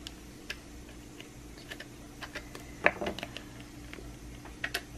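Scattered small clicks and taps of scissors working at a small plastic toy capsule, prying and cutting to free a wig stuck inside, with a louder cluster of clicks about three seconds in.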